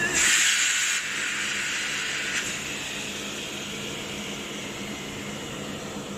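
Presswood pallet press machinery: a loud hiss starts suddenly, is strongest for about the first second, and dies away about two and a half seconds in. A steady machine hum runs under it.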